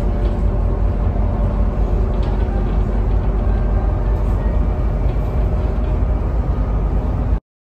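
Steady engine and road rumble heard from inside a moving city bus, heavy in the low end, cutting off abruptly near the end.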